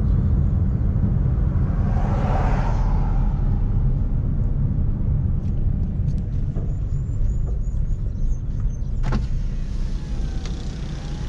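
Steady low rumble of a car's engine and tyres heard from inside the cabin while driving slowly. About nine seconds in there is a sharp click, and the outside air noise gets louder after it, as from a power side window being lowered.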